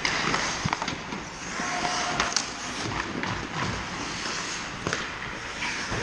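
Ice hockey play close to the goal: skate blades scraping and carving across the ice, with sharp clacks of sticks and puck, several in the first half and another about five seconds in.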